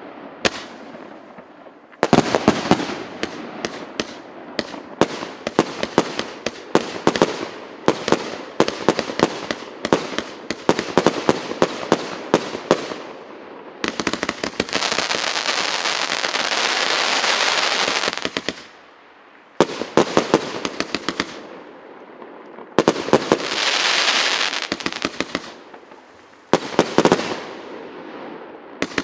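A 190-shot firework cake of 0.8-inch and 1.25-inch tubes firing volley after volley of rapid sharp shots and bursts, in several runs with short pauses between. Twice the shots give way to a dense continuous hiss, the first lasting about four seconds past the middle, the second shorter near the end.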